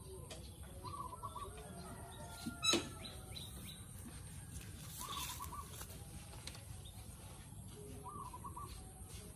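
Outdoor bird calls: a short burst of three or four quick notes, repeated about every three to four seconds, with one sharp knock about three seconds in.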